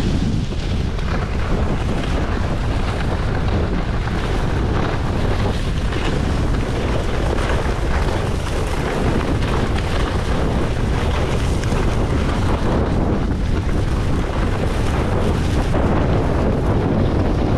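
Wind rushing over the microphone of a body-worn camera on a skier moving downhill, with the steady hiss and scrape of skis sliding over packed, groomed snow underneath.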